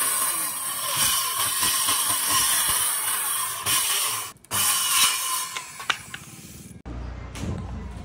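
Handheld Bosch circular saw cutting through a film-faced plywood board: a loud, steady, high-pitched cutting noise that drops out briefly about four seconds in, runs again, then winds down around six seconds. Near the end come a few soft knocks as the board is handled.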